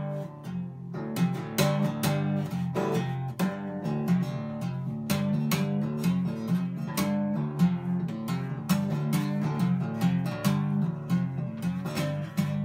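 Acoustic guitar strummed and picked in a steady rhythm, with strong bass notes under the strokes; it cuts off suddenly at the end.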